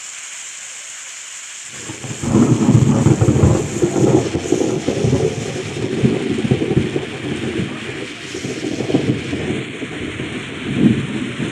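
Heavy rain hissing steadily. About two seconds in, a loud, uneven low rumble sets in over it and swells and fades for the rest of the time, heaviest soon after it starts and again near the end.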